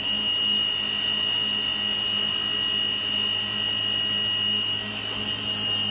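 Electric motor running continuously: a steady high-pitched whine over a low hum, with no change in speed or load.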